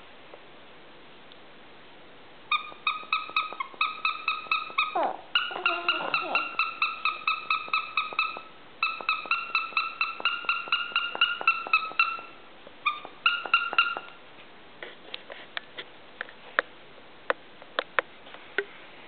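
A baby-gym toy's high chirping: a rapid run of short beeps on one pitch, about four to five a second, in several bursts with short gaps, and a brief falling sound partway through. The chirping stops after about fourteen seconds, leaving a few scattered light clicks of the toys being handled.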